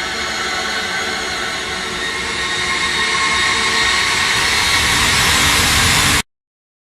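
A suspense riser sound effect: a dense rushing swell with faint sustained tones in it, slowly growing louder, that cuts off abruptly about six seconds in.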